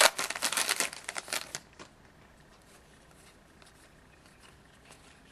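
A trading-card pack wrapper crinkling and tearing open for about the first second and a half, then faint soft clicks as the cards are handled.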